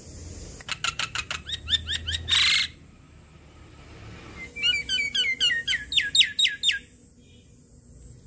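Javan myna calling: two bursts of rapid, downward-sweeping chirps. The first burst ends in a short harsh rasp; the second follows about two seconds later.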